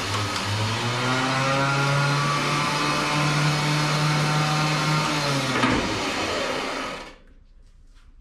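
Runva 11XP Premium electric winch motor running under its wireless remote: a steady whining hum from the drum drive. About five seconds in, the pitch sags, and the motor winds down and stops about seven seconds in.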